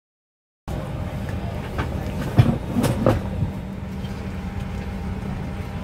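Steady low drone inside a Boeing 737-900ER cabin during boarding, with a few sharp knocks and clatters about two to three seconds in. The sound starts suddenly under a second in.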